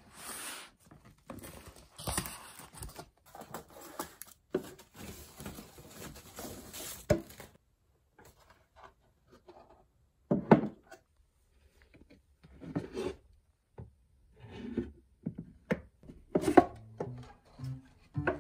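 A cardboard carton is opened, with several seconds of tearing and rustling packaging. Then a paulownia-wood box is handled, giving a run of separate wooden knocks and thunks.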